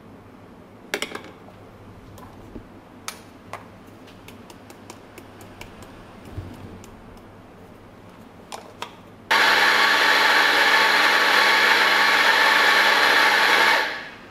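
Electric espresso grinder running for about four and a half seconds, a steady motor whine grinding beans into a portafilter, then stopping near the end. Before it, a few light clicks and taps.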